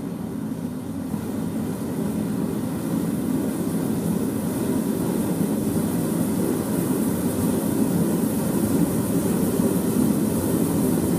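Two-burner propane forge running, both burners making a steady rushing roar with a high hiss. It grows louder over the first few seconds as the propane pressure is turned up at the bottle, then holds steady.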